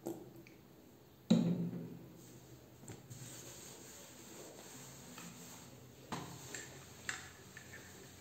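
A cloth being rubbed and wiped across a granite countertop. There is a dull thump about a second in and a couple of light knocks near the end.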